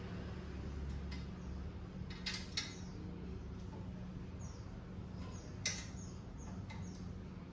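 A handful of sharp metallic clicks from a screwdriver working the bolts of a steel motorcycle rear-box bracket, the sharpest about two-thirds of the way through. Faint short bird chirps in the background.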